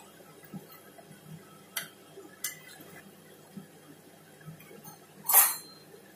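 Dal vadas deep-frying in hot oil in a metal pan, a low crackle with scattered small pops and clicks, perhaps the slotted spoon touching the pan. One louder, brief hissing burst comes about five and a half seconds in.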